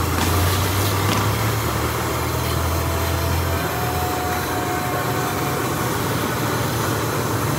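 A steady low mechanical hum under a constant hiss, with a faint thin tone in the middle stretch.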